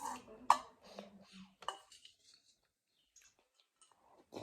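Eating noodle soup: a few short clinks of utensils against a bowl and mouth sounds in the first two seconds, then quiet, then one more short sound near the end.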